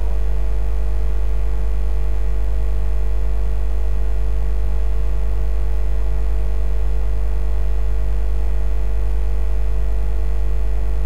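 A steady low hum with a faint hiss and faint steady tones above it, unchanging throughout.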